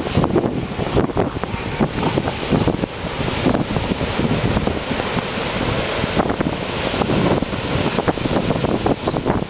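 Wind buffeting the microphone in irregular gusts over the steady wash of ocean surf.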